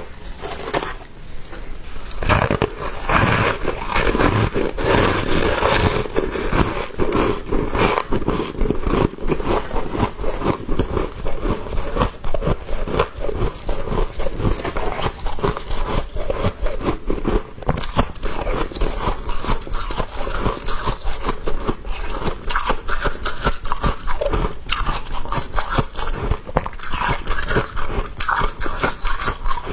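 Biting and chewing of small, soft, powdery ice chunks: a dense, unbroken run of crisp crunches and crackles.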